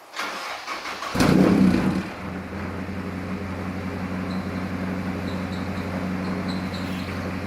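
Honda Civic's K20 four-cylinder engine cranking, catching about a second in with a brief rev, then settling into a steady idle.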